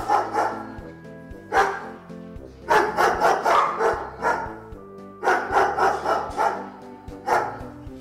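Several dogs barking excitedly in repeated bouts of rapid barks, over background music with long held notes.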